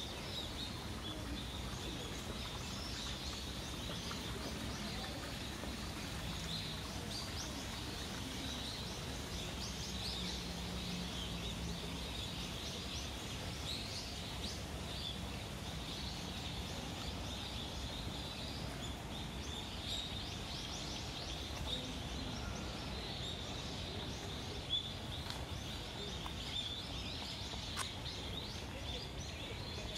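Small birds chirping and twittering again and again in the trees over a steady background hum, with a couple of brief clicks near the end.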